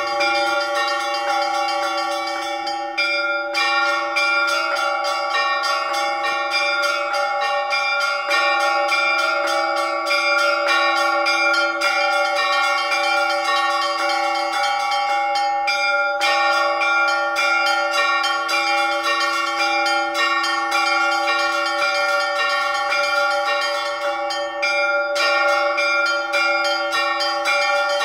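Russian Orthodox church bells ringing a rapid peal (perezvon) from a small open belfry: quick, dense strikes on the small high bells over the held ringing of the lower bells. The fast strikes break off briefly three times and resume.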